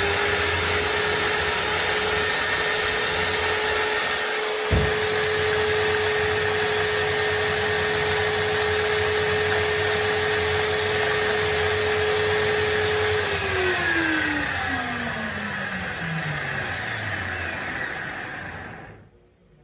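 Large 230 mm-blade concrete-cutting angle grinder running free at full speed with a steady whine and a brief click about five seconds in. About 13 seconds in it is switched off and winds down, its pitch falling over some six seconds until the motor stops.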